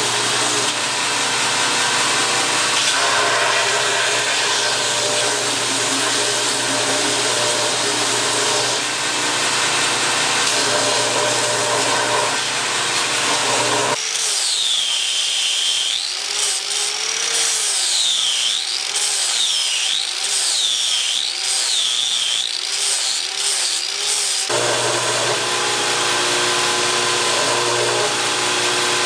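An electric power tool running steadily with a hum. Partway through, the low hum drops out for about ten seconds while a high whine wavers up and down repeatedly, then the fuller running sound returns.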